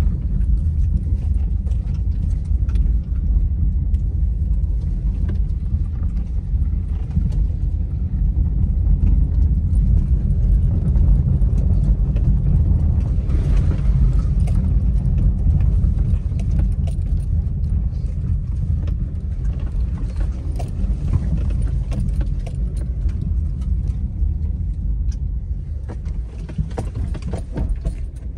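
Low, steady rumble of a car driving over rough unpaved roads, heard inside the cabin, with light clicks and rattles from the car and a few sharper knocks near the end.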